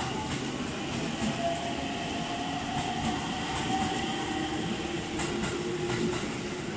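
JR Central 313 series 8500-subseries electric train pulling out past the platform. Its motors give a steady whine that shifts to a lower tone about halfway through, over the rumble of the cars, and the wheels click over rail joints a few times.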